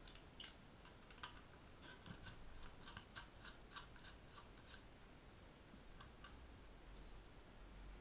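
Faint, short metallic clicks of a small Phillips screwdriver turning screws out of a metal laptop hard-drive caddy, a quick run of them in the first few seconds and two more about six seconds in.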